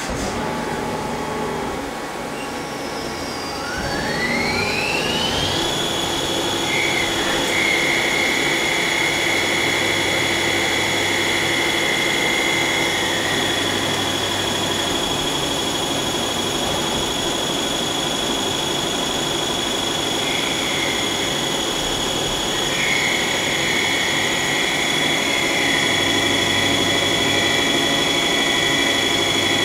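Mazak CNC lathe spindle spinning up to about 2000 rpm: a rising whine that levels off into a steady high whine about five seconds in. Long stretches of higher, hissing cutting noise come as the flat-bottom grooving tool turns the part.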